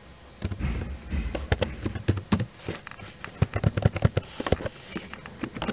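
Typing on a computer keyboard: a run of irregular key clicks starting about half a second in.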